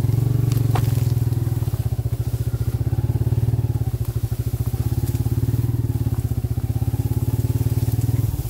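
Motorcycle engine running steadily at low revs with an even, fast firing pulse as the bike crawls through tall grass.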